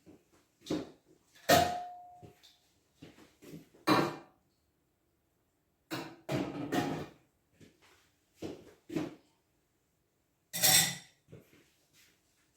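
Dishes and utensils being handled: a string of irregular knocks and clinks with short pauses between them. One clink about a second and a half in rings on briefly.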